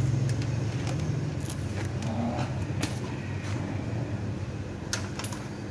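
An electric motor running with a steady low hum, with a few scattered clicks and light knocks from handling metal parts.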